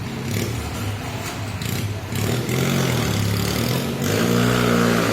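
Motorcycle engine running, its pitch rising as it is revved about two seconds in and held higher and louder from about four seconds in.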